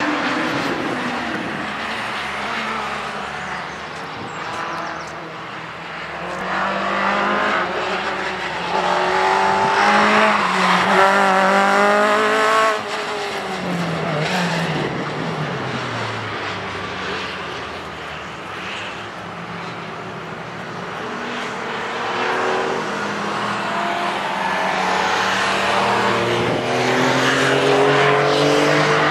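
Citroën Saxo rally car's four-cylinder engine revving hard up through the gears, its pitch climbing, then dropping suddenly about halfway through as it lifts off and falls away. Later it runs at lower revs, with the note rising slowly near the end.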